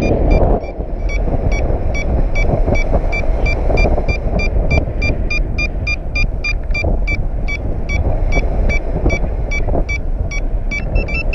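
A paragliding variometer beeps about two and a half times a second, the audible signal that the glider is climbing in lift, over wind rushing on the microphone. Near the end the beeps go higher and come quicker, a sign of stronger lift.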